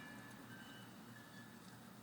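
Near silence: only a faint low background hum.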